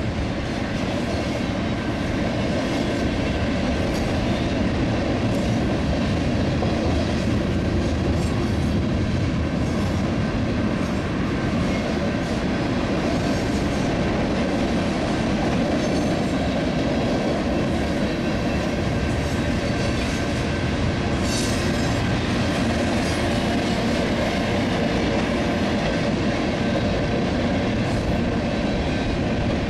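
Cars of two freight trains rolling past each other on adjacent tracks, a steady, continuous rumble of steel wheels on rail.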